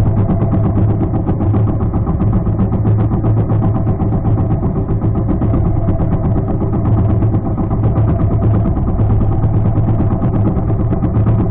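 Outrigger fishing boat's small engine running steadily: a low, even drone with a rapid pulse.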